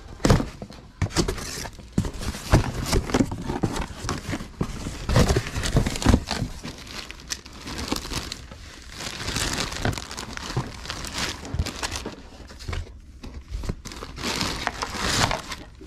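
Plastic and paper packing material crinkling and rustling as hands pull it out of a cardboard box, with irregular crackles throughout.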